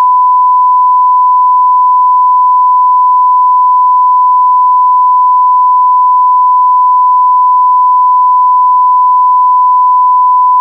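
Colour-bars test tone: a loud, steady, unbroken pure beep of a single pitch.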